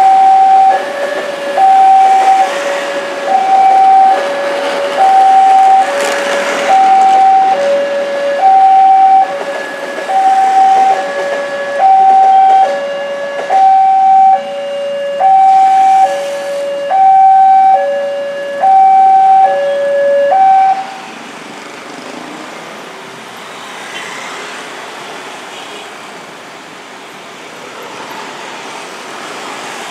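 Railway level crossing's electronic warning alarm sounding a loud alternating high–low two-tone, about one pair every two seconds, as a commuter train crosses. It stops about two-thirds of the way through, once the train has cleared, leaving the hum of waiting road traffic.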